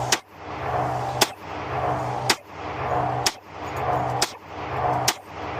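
Glock 29 Gen 5 10mm pistol fired six times in slow, even succession, about one shot a second. Between shots a humming background drops out at each shot and swells back up.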